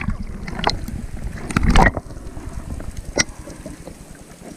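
Muffled underwater water noise around a submerged action camera, with a few sharp clicks; it grows quieter after about two seconds.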